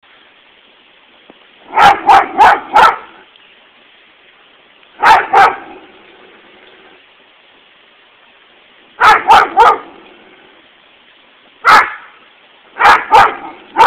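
Dog barking at a lawnmower in short bursts of two to four loud barks every few seconds, with a single bark between.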